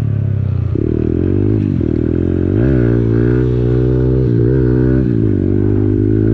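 Kawasaki KLX110 pit bike's small single-cylinder four-stroke engine running while riding, the revs rising and falling a few times as the throttle is worked.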